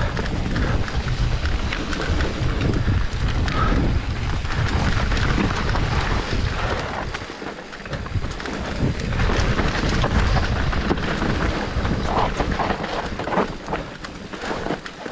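Wind rumbling on the camera microphone of a mountain bike riding down a dirt trail, with the tyres rolling over dirt and leaves and the bike rattling over bumps. It eases briefly about halfway through.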